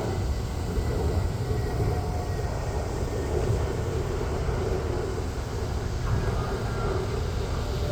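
Jet airliner engines running, a steady low rumble with a faint whine above it.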